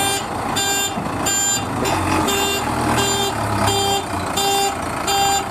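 Vehicle reversing alarm beeping evenly, about one and a half beeps a second, over a low engine rumble.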